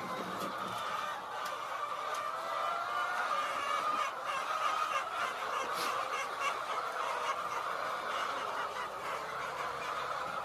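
A flock of chickens calling together in a steady, unbroken chorus of many overlapping voices.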